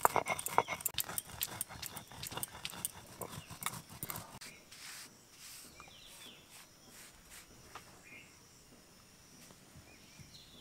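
Stone pestle knocking and rubbing on a flat grinding stone (sil-nora), crushing dry-roasted whole spices into powder: rapid knocks for about four seconds, then the grinding stops.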